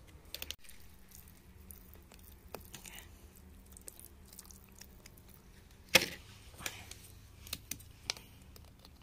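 Scattered small clicks, taps and wet scrapes of handling at a wet clay rock face with embedded stones, with one sharp knock about six seconds in.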